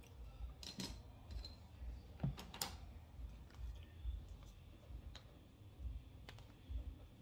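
A handful of small, sharp clicks and taps, spread out irregularly, from makeup being handled: an eyeshadow palette and brush being picked up and moved.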